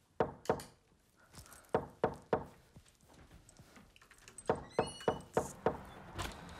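A lamp switch clicking, then a few footsteps, then a quick run of about five knocks on a door.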